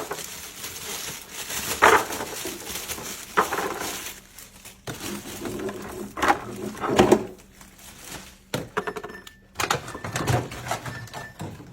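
Apples being set into a plastic refrigerator bin: scattered knocks and clatters as the fruit and bins are handled.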